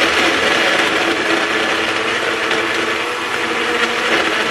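REDMOND personal blender running steadily at full speed, its blade churning a thick smoothie with ice in the jar.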